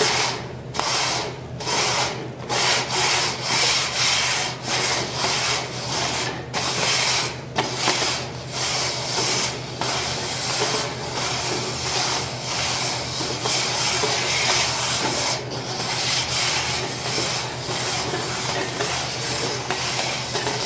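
Plastic party cups sliding and scraping fast across a wooden tabletop as they are shuffled, a continuous rubbing broken by a few brief pauses.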